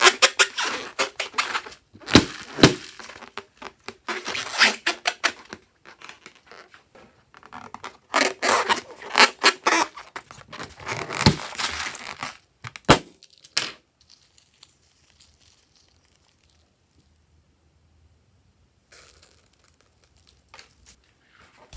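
Hands squeezing and rubbing a filled rubber balloon: irregular bursts of crackling, squeaking rubber and sharp clicks. The sounds stop about two-thirds through, leaving near silence, with faint rustling near the end.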